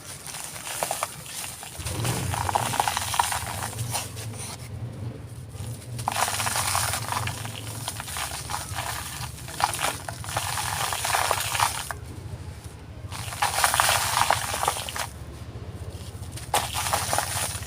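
A dry, crumbly texture being crushed and crumbled by hand, at a fast pace. It comes as repeated bouts of crisp crackling and clicking, each a couple of seconds long with short pauses between, over a low steady hum.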